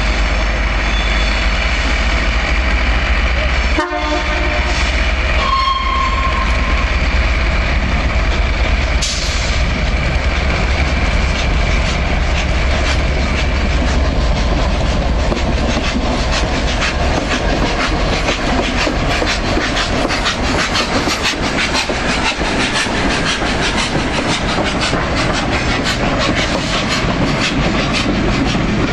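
Class 67 diesel locomotive, with its EMD V12 two-stroke engine running, hauling a dead steam locomotive and a coach slowly past. The wheels clatter over rail joints and pointwork, and the clatter grows denser in the second half. A brief high tone sounds about five seconds in.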